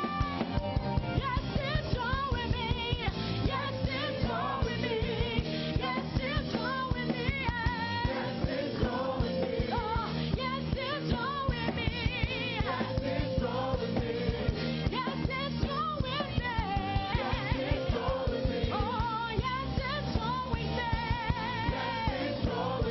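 Gospel praise-and-worship music with singing over a steady drum beat.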